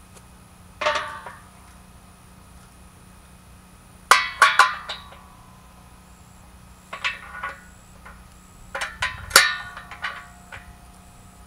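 Metal parts of a solar tracker frame clanking and clinking together as a cross rod is handled and refitted, in four bursts of sharp metallic knocks, each with a short ringing after it.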